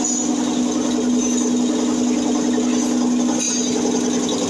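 Schulz 20-pés belt-driven air compressor running steadily: an electric motor driving a two-cylinder V piston pump, with a constant hum.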